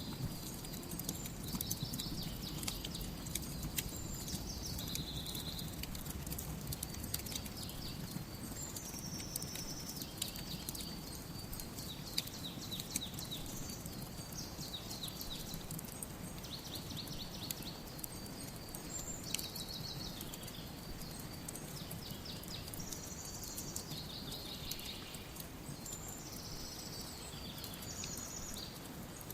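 Wood fire crackling with frequent sharp pops and snaps over a low steady wash, while small birds call in the background with short high chirps and rapid trills every few seconds.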